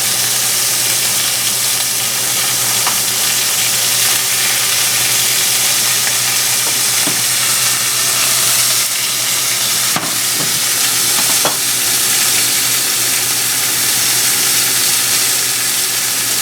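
Thin-sliced venison tenderloin sizzling steadily in hot olive oil in a pan, with a couple of faint clicks about ten seconds in.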